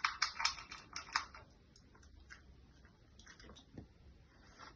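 Small dog eating dry food: a quick run of crisp crunching clicks in the first second or so, then a few fainter ticks.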